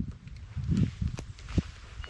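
Footsteps on the ground, a few soft thuds with a couple of sharp clicks about a second and a half in.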